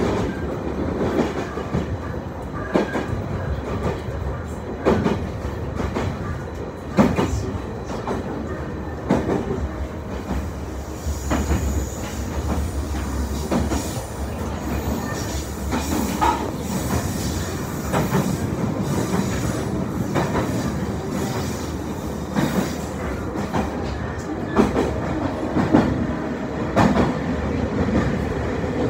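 Train running sound heard from inside the passenger car: a steady rumble with irregular clacks of the wheels over rail joints. A thin high squeal runs from about eleven to twenty seconds in.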